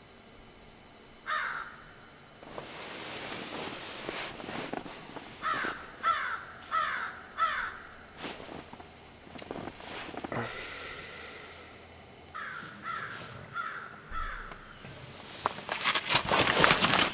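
Crows cawing: a single harsh, falling caw, then two series of four caws. Loud rustling and crunching near the end.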